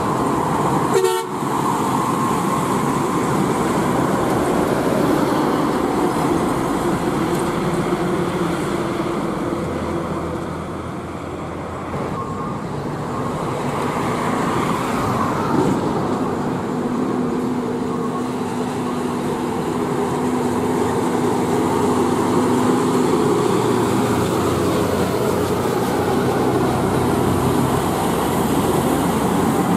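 Heavy diesel trucks, among them a DAF CF85 410 tractor unit, driving past at low speed with engines running and tyres on the road. A steady droning tone is held for several seconds after the middle.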